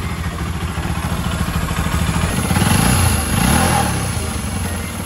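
Bajaj Pulsar NS200's single-cylinder engine idling steadily, revved up and back down twice about halfway through, then settling back to idle.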